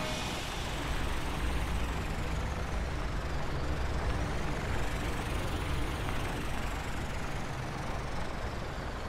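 Cartoon truck engine sound effect, running steadily as the truck drives along, with a faint hiss that slowly rises and then falls in pitch.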